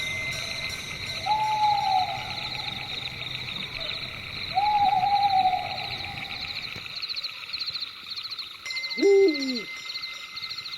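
Night chorus of crickets chirping steadily, with two long owl hoots, one about a second in and one about four and a half seconds in. Near the end comes a louder, wavering call that falls in pitch.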